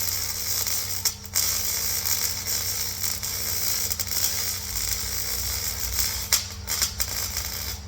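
Power tool abrading metal, a continuous harsh rasp with a steady motor hum underneath and brief dips about a second in and near the end; it stops abruptly at the end, consistent with cleaning rust and old coating off the repaired panel.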